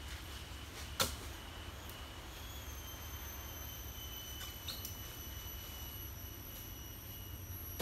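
One sharp knock about a second in, over a steady high-pitched insect drone that sets in a couple of seconds later.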